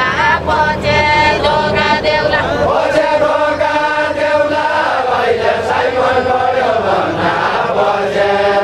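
Group of voices singing a Nepali deuda song together in chorus, in long held, gliding notes.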